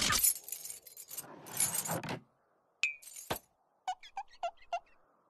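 Cartoon sound effects: a rapid pulsing sputter that cuts out just after the start, then clinks and clatter, a sharp click, and a quick run of about five short squeaks near the end.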